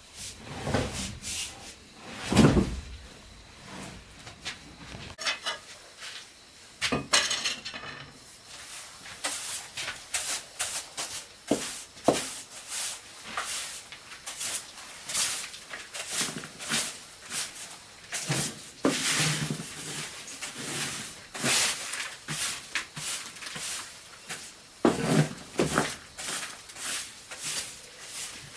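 Irregular knocks and clatter of objects being handled, a few sharp knocks a second through most of it, with a handful of heavier thuds.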